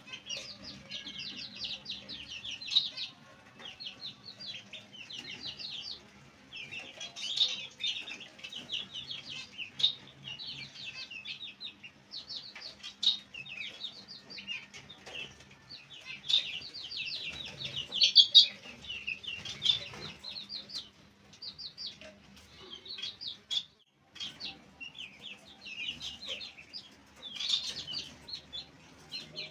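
A group of baby chicks peeping constantly, many short high chirps overlapping in rapid runs. A few sharp thumps stand out, the loudest about two-thirds of the way through.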